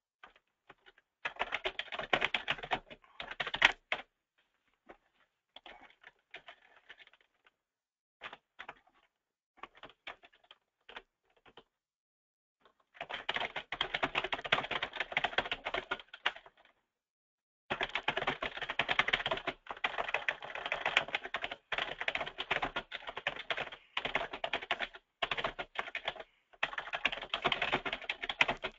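Computer keyboard typing in fast runs of keystrokes. Between about four and thirteen seconds in there are only scattered, halting key presses, then steady typing resumes.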